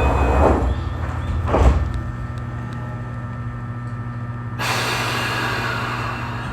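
Keio 8000-series electric train's sliding doors closing with a thump about a second and a half in, over the steady hum of the train's equipment, then a sudden hiss of air about two-thirds through, typical of the brakes releasing for departure.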